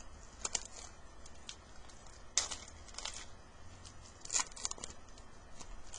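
Hockey trading cards and their wrappers being handled and flicked through: several short papery swishes and crinkles, the loudest about two and a half and four and a half seconds in.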